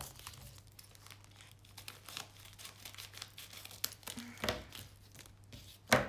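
Plastic wrapping of a diamond-painting kit crinkling and rustling as it is handled, in scattered short rustles, with a louder one near the end.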